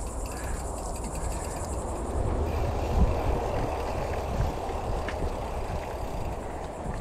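Mountain bike rolling along a dirt forest trail: a steady rumble of tyres on the ground and rattle from the bike, with a few sharp knocks as it rides over bumps.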